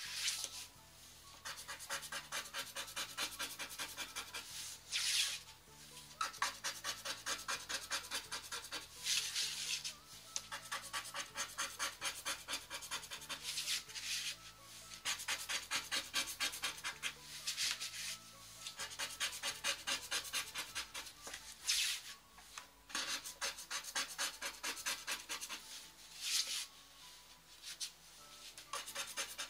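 Scratch-off lottery cards being scraped in runs of quick back-and-forth strokes, with a few louder, harder passes along the way.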